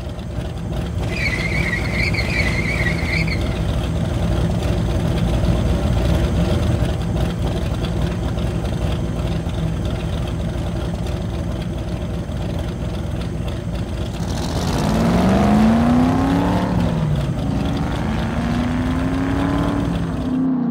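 A car engine running with a steady low rumble. About a second in, a wavering high squeal lasts for roughly two seconds. From about three-quarters of the way through, the revs rise and fall several times.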